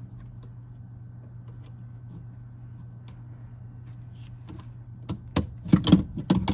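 Hands working a replacement gear shift bracket and its parts into place: a quiet stretch over a steady low hum, then a quick flurry of sharp clicks and knocks near the end.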